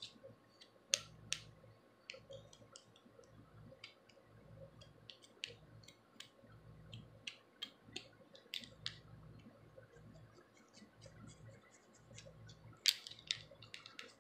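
Plastic rat-tail comb tip and fingernails scratching and picking at a scalp to lift dandruff flakes: faint, irregular scratchy clicks, with a louder cluster near the end.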